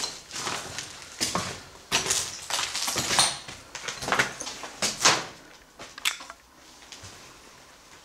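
Footsteps scuffing and scraping on a hard, gritty floor, about one step a second, dying away after about six seconds.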